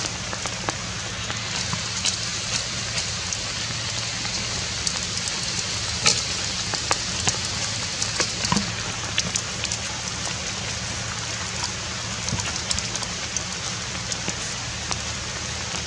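Steady rain falling, a continuous hiss with many sharp individual drop hits.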